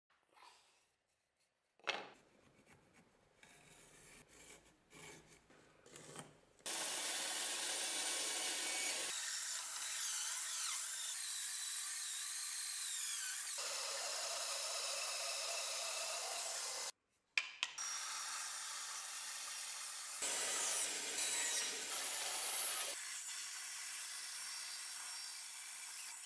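Small band saw cutting through a block of ash wood, a steady hiss of the blade in the wood, in several cut-together stretches. About the first six seconds hold only quieter handling clatter before the sawing starts.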